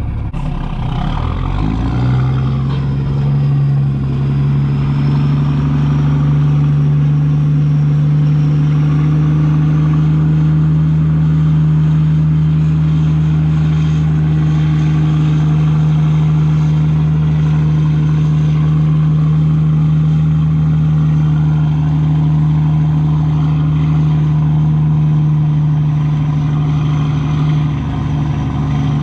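Semi truck's diesel engine pulling away under the weight of a loaded lowboy trailer, its pitch rising over the first two seconds, then running steadily at one pitch.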